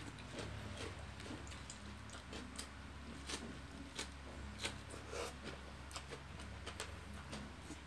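Mouth sounds of eating steamed chicken and lettuce: chewing and lip smacks as irregular wet clicks, over a steady low hum.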